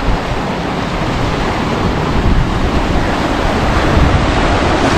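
Sea surf washing and breaking over a rocky shore, a steady rushing noise, with wind buffeting the microphone.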